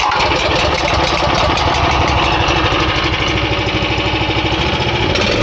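The 9 PS single-cylinder petrol engine of a Jansen RD 500 mini tracked dumper, started cold in frost, runs at idle with a steady rhythm. Its note settles and evens out near the end.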